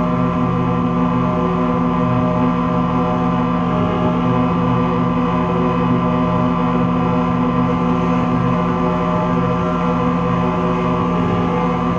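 Ambient drone music from a live-performed score: many steady tones layered and held without a break over a deep hum, with a faint pitch bend about four seconds in.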